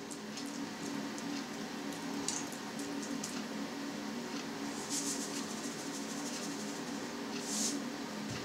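Hands rubbing salt into a soft disc of fresh halloumi cheese on a plastic cutting board, a faint squishing and scraping. Twice, near the middle and near the end, there is a brief hissing rattle of salt shaken from a shaker. A faint steady hum runs underneath.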